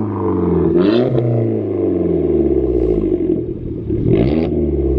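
Audi A1 1.4 TFSI turbo petrol engine through its twin-tip exhaust, idling and blipped twice, about a second in and again about four seconds in, each rev dropping straight back to idle.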